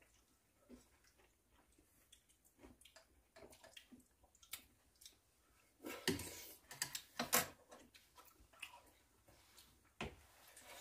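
Quiet eating sounds: scattered small clicks of a spoon and chopsticks against bowls, with chewing of pumpkin porridge and fruit, and a louder stretch of mouth and utensil sounds about six to seven and a half seconds in.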